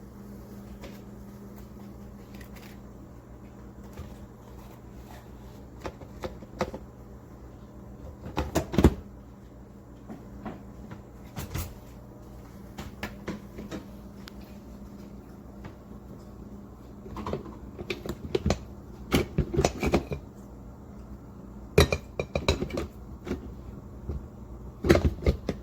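Scattered knocks and clatter of hard plastic and glass parts of a small drip coffee maker being handled, over a steady low hum.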